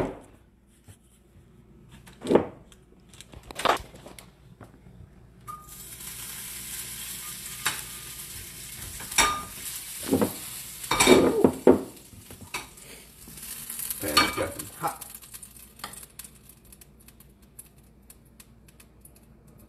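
Butter sizzling in a hot stainless steel frying pan, starting sharply about five seconds in and dying away some ten seconds later. Several knocks of the pan and utensils against the stove come before and during it.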